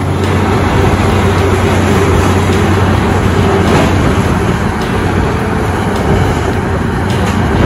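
Morbark 3400 XT horizontal grinder running under load: the steady, loud drone of its Caterpillar C18 diesel with the dense roar of the hammermill grinding wood waste into chips.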